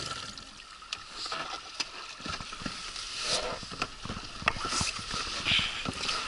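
Scattered light knocks and taps with a few brief splashes of water around a small inflatable boat drifting with its outboard not pulling, over a faint steady high tone.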